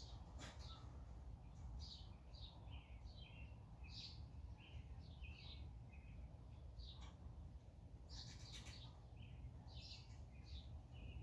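Faint birds chirping and singing, many short repeated notes throughout, over a steady low rumble, with a few brief clicks.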